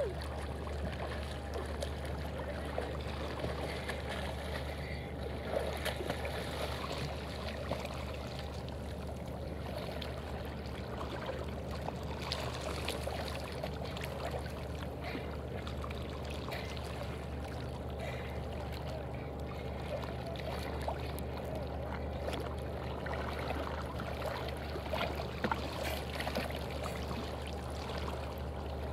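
Small sea waves lapping and sloshing right at the microphone, a steady watery trickling over a constant low rumble, with a few brief sharper splashes.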